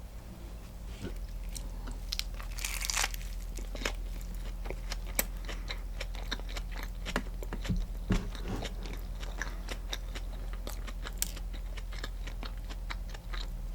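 Close-miked biting and chewing of a sourdough sandwich: crusty bread crunching, with many small sharp mouth clicks and crackles. A steady low hum runs underneath.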